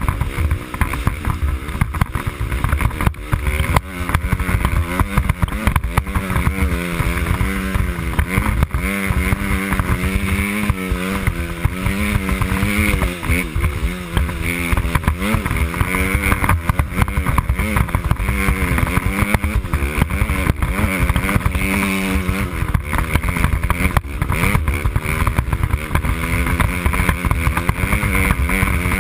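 Dirt bike engine running hard through deep snow, its pitch rising and falling constantly as the throttle opens and closes.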